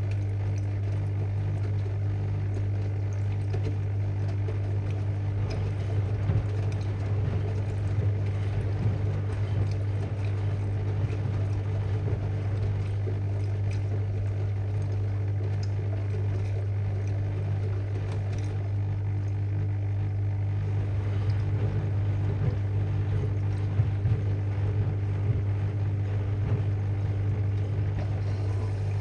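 AEG Lavalogic washing machine filling with water for its final rinse while the drum turns at distribution speed. A steady motor hum over the rush of incoming water.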